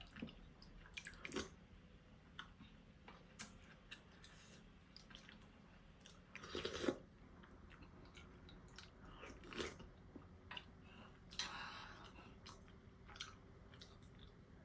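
Close-up, faint chewing and biting of ramen noodles and rice, with soft wet mouth clicks and a few louder, longer eating noises about seven and eleven seconds in.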